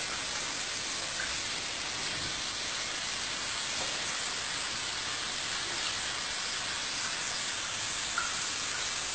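Bidet tap running, a thin stream of water splashing steadily into the bowl and onto a rat sitting in it.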